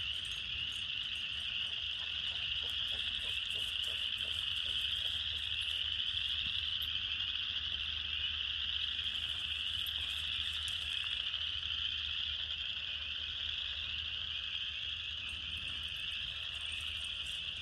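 A dense, steady chorus of frogs calling together, a continuous high trilling with no break, over a faint low hum.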